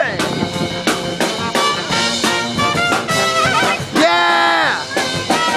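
Live brass band playing a swinging, jazzy tune, trumpet and trombone to the fore. About four seconds in, a long held note bends down in pitch at its end.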